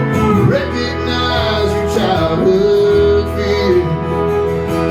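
Live country band playing an instrumental passage between sung lines: guitars over a steady bass, with a lead line that bends in pitch a couple of times.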